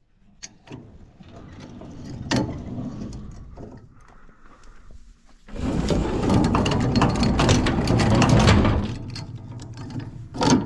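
Machinery clattering and rattling: scattered clicks at first, then a louder stretch of dense clatter for a few seconds in the middle.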